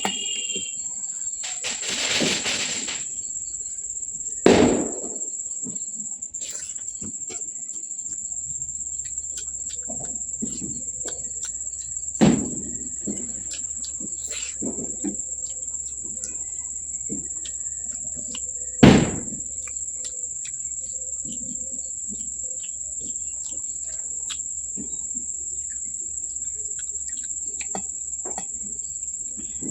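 Crickets trilling steadily and high-pitched throughout, under close eating noises: many small clicks and chewing sounds, and four loud sudden knocks or crunches spread across the stretch.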